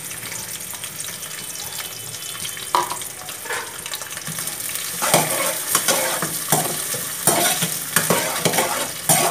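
Sliced onions sizzling in hot oil in a kadhai. From about halfway on, a spatula stirs them with repeated scraping strokes against the pan.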